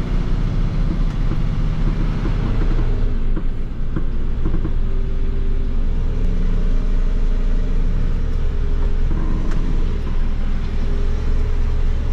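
Mercedes-Benz Unimog's diesel engine running steadily in fourth gear as the truck pulls slowly through a water-filled pit.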